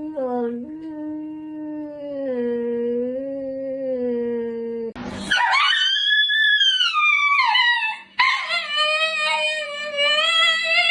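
A dog howling in long drawn-out notes: a low steady note, then a much higher note that rises and falls, then another long held note near the end.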